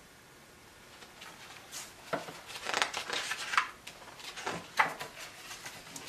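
Pages of a hardcover picture book being turned and handled: irregular paper rustling starting about a second in, with a few sharper rustles and knocks.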